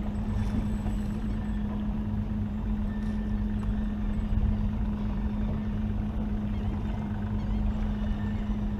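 Evinrude E-TEC outboard motor running steadily with a constant low hum.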